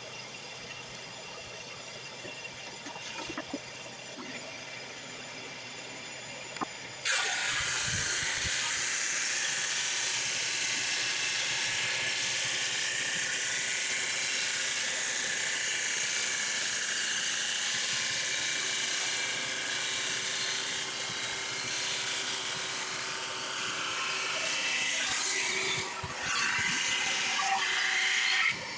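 Drum sander running with a shop vac, a steady machine hum. About seven seconds in, a board of white ash feeds under the abrasive drum and a loud, even sanding hiss sets in suddenly. The hiss lasts until just before the end, when the board clears the drum and the sound drops back.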